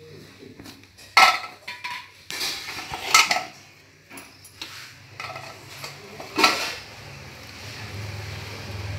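Hand mixing flour and water in a large stainless-steel plate: soft rubbing and scraping, with three sharp metallic clinks of steel about a second in, around three seconds and at about six and a half seconds.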